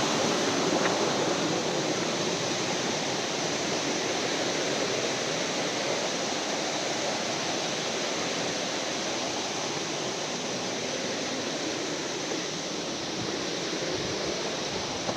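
Steady rush of falling water from a waterfall, growing slightly quieter over the stretch.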